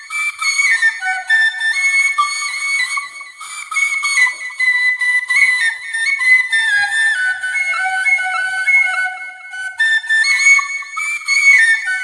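Solo bamboo flute (bansuri) playing a melody in held notes, with no accompaniment.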